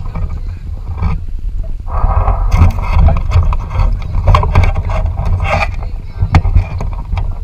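Loud low rumble of wind and handling noise on a GoPro's microphone, with scattered knocks and scrapes as the camera moves among the sticks of an osprey nest.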